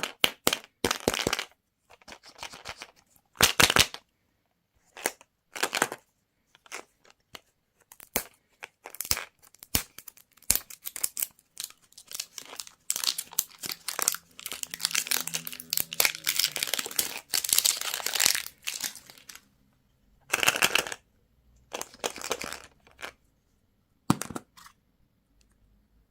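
Candy wrappers crinkling and tearing in a string of short, sharp bursts, with a denser run of crackling around the middle.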